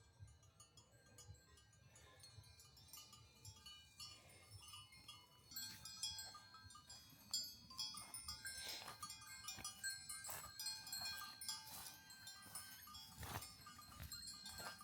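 Livestock bells clinking and ringing faintly, many small tones overlapping, becoming busier and a little louder about halfway through.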